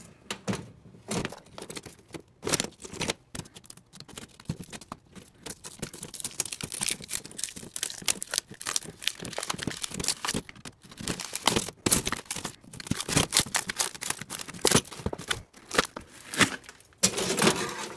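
Laminated polyethylene layers of an armor plate's backing being pried up with a screwdriver and peeled apart: a dense, irregular run of crackles and tearing.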